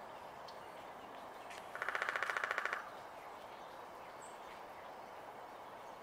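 Downy woodpecker drumming on a tree trunk: one rapid, even roll of strikes lasting about a second, near two seconds in.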